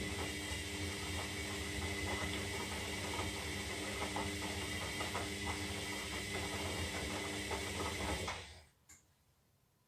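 Zanussi Lindo 300 washing machine's motor turning the drum during the wash tumble, a steady hum and whine with rattling from the drum and load. It stops after about eight seconds, followed by a single click.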